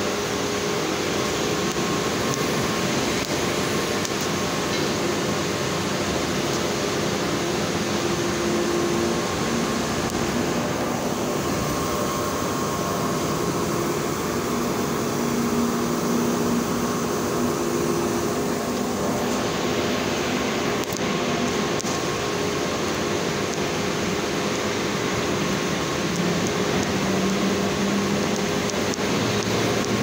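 Steady industrial din of a blast furnace cast house: continuous machinery and air noise with faint humming tones that come and go.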